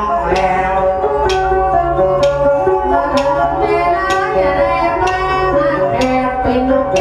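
Northern Thai folk ensemble music of salo fiddle and pin lute playing a melody, with a sharp percussive tap about once a second.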